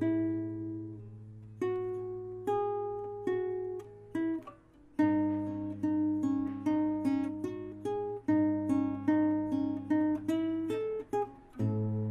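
Background music: a plucked acoustic guitar picking out a melody over held bass notes.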